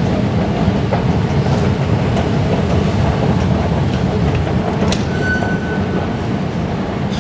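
Steady low rumble of an underground metro station, with a sharp click about five seconds in followed by a short high beep.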